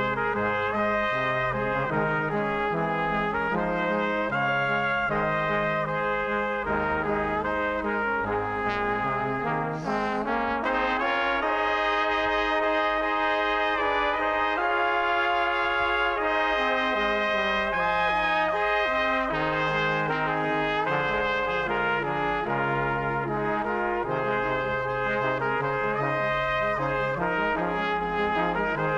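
Brass band music playing a patriotic march, trumpets leading over lower brass.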